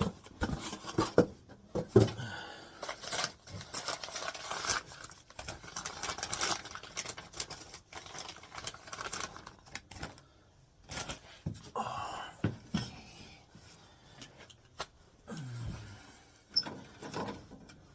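Hands working inside a gas furnace: scattered clicks, taps and rattles as wire plugs and connectors are pulled and handled, with some rustling.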